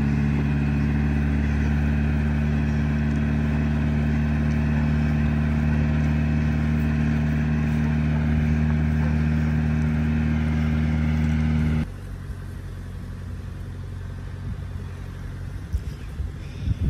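A vehicle engine running steadily at a low, even pitch. About twelve seconds in it cuts off abruptly, leaving quieter outdoor ambience with a few brief bumps near the end.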